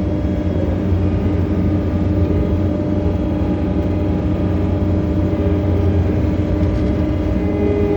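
John Deere 317 skid steer's diesel engine running at a steady pitch.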